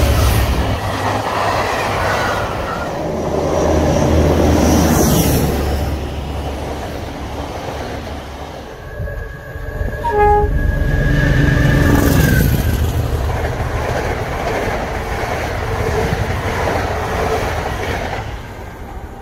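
Diesel locomotive-hauled train passing close by, the engine and the coaches' wheels clattering over the rails. About ten seconds in a train horn sounds for a couple of seconds, and near the end the train noise fades as it draws away.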